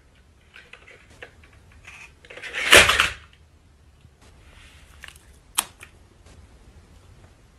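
Battery-powered toy dinosaur on a wooden floor: small clicks and light clatter, with one louder, noisy clatter about three seconds in as it topples over, and a single sharp click a little later.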